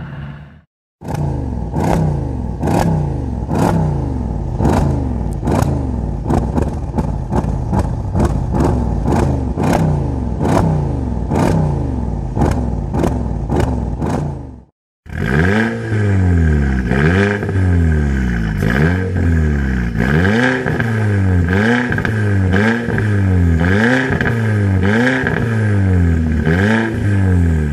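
A Mercedes-AMG with square quad tailpipes revved over and over while standing, with a sharp crack from the exhaust about twice a second. After a short silence a second car, with twin round tailpipes, is blipped repeatedly, each rev rising and falling about once a second.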